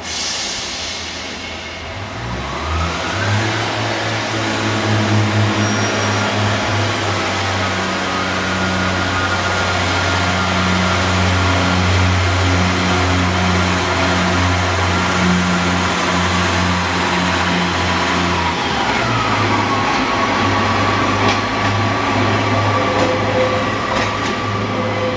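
Underfloor diesel engine of a Pacer railbus powering up about two seconds in and running hard under power as the unit pulls out, with a change in engine note near the end.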